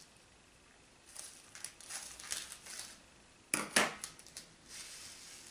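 Small plastic candy-kit sachets being cut open with scissors and handled: crinkling rustles, with two sharp clicks about three and a half seconds in and a softer rustle near the end.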